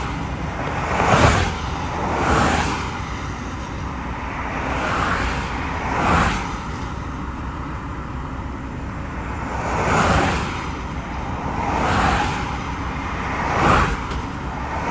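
Highway traffic passing close by: about seven vehicles go by one after another, each a swelling and fading whoosh of tyre and engine noise over a steady road rumble.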